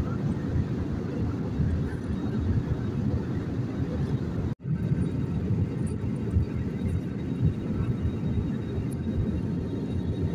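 Steady in-flight cabin rumble of an Airbus A320 heard from a window seat, the engines and airflow making a dense, low, even noise. The sound drops out abruptly for a fraction of a second about halfway through, then resumes unchanged.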